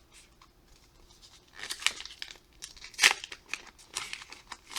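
A pack of 2002 Topps 206 baseball cards being torn open, its wrapper crinkling. It is quiet for the first second and a half, then comes a run of short ripping and crinkling crackles, the loudest about three seconds in.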